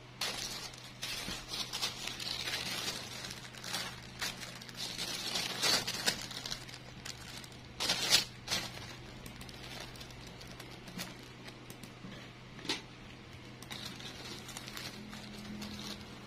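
Thin plastic-bag sheet crinkling and rustling as it is handled and smoothed flat by hand, in irregular bursts that are loudest about eight seconds in, then a few fainter crackles.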